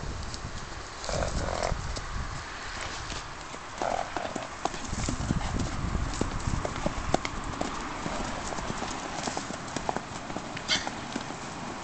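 Horses galloping and play-fighting on grass and dirt, hooves thudding in an irregular rhythm.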